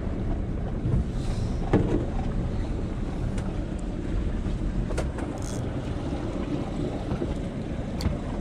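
Boat motor running steadily at low speed, a continuous low rumble, with wind on the microphone. A few light clicks and knocks are heard over it, the loudest a thump a little under two seconds in.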